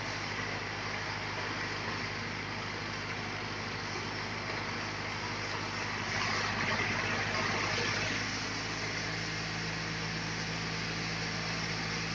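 Sawmill machinery running steadily with a low mechanical hum. It grows louder and hissier for a couple of seconds about six seconds in, then settles back, and a new low hum joins about nine seconds in.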